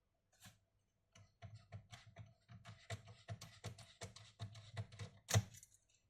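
A quick run of light clicks and taps on a laptop, about three or four a second, ending with one sharper click.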